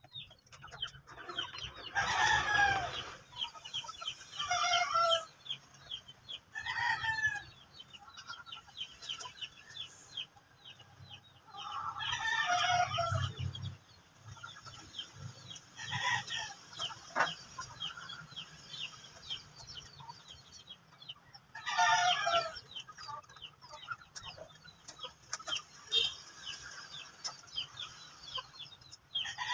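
Chickens calling, with a rooster crowing and hens clucking every few seconds.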